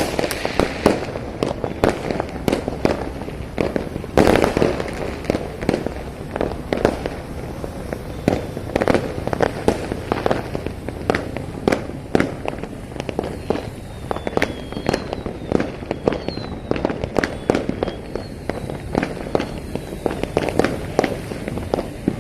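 Many fireworks going off across a city, a continuous run of overlapping bangs, pops and crackles from near and far, with one louder bang about four seconds in and a few faint high whistles later on.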